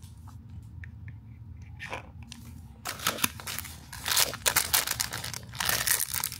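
The crinkly purple foil wrapper of a Disney Doorables mystery figure being crumpled and torn open by hand. Dense crackling bursts start about three seconds in, after a few light clicks.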